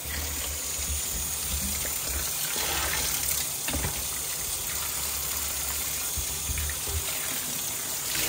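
A steady rushing, water-like noise with a few faint clicks in it.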